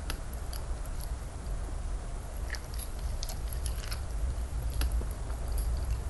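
A person chewing raw salmon sashimi up close: scattered soft mouth clicks, most of them in the middle stretch, over a steady low hum.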